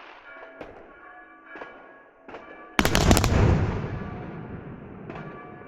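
Fireworks going off: a few scattered pops, then one loud firework bang about three seconds in that rumbles and echoes away over the next couple of seconds.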